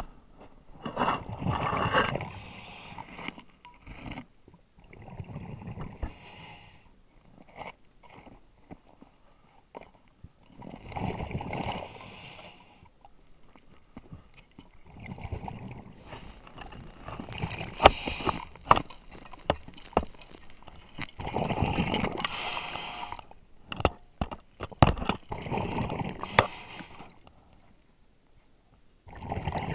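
Scuba diver's exhaled breath bubbling out of the regulator, heard underwater, in noisy bursts of a second or two about every four to five seconds with quieter gaps for the inhale between. Scattered sharp clicks and knocks sound in between.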